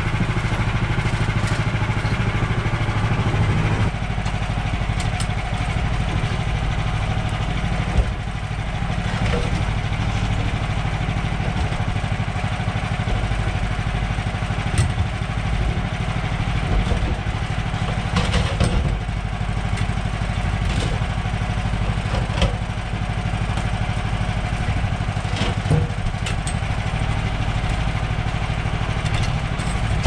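Woodland Mills HM130 portable sawmill's petrol engine idling steadily between cuts, with scattered wooden knocks and clunks as a log is rolled and turned on the mill bed with a cant hook.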